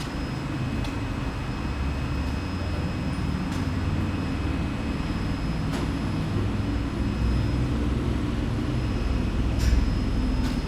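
Steady low rumble of background noise in a parking garage, with faint high-pitched steady whines above it and a couple of faint ticks.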